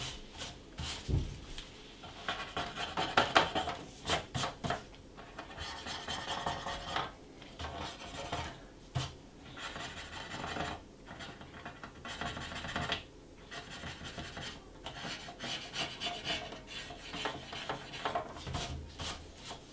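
Gloved hands rubbing and scraping over the plastic top case of a Commodore 16 in short, uneven strokes.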